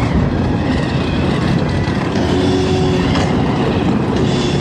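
Monster truck engine running loud and steady as the truck drives around the track.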